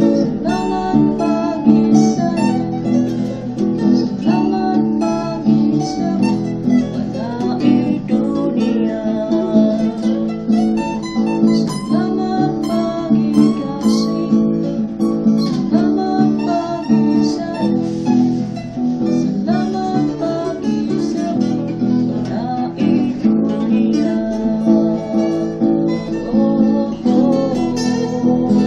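Two guitars playing together: an acoustic guitar is strummed while an electric guitar plays lead lines over it, with some bent notes. The playing runs as one continuous song passage.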